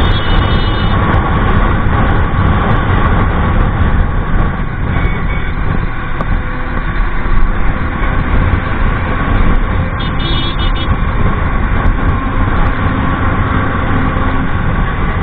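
Wind rushing over the camera microphone, with the road and engine noise of a TVS Ntorq 125 scooter ridden through traffic at about 50 to 70 km/h. The noise is steady and loud, heaviest at the low end.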